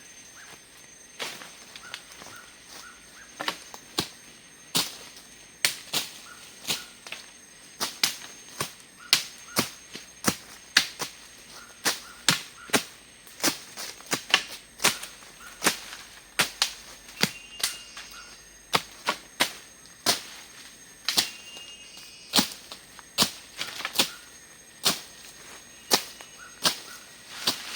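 Machete (parang) hacking at wood, dozens of sharp, irregular strikes about one to two a second, cutting firewood and brush to start a campfire. A steady high insect drone runs underneath.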